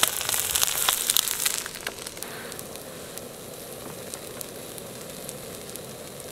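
An egg frying in a steel pan over a camping gas burner, sizzling and crackling, until the sizzle drops away a little under two seconds in. A steady softer hiss, the burner running, is left.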